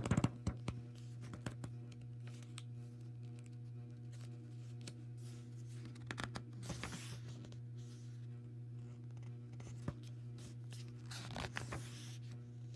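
Paper rustling as the pages of a book are handled and turned: brief rustles at the start, around six seconds in and again near the end, over a steady low hum.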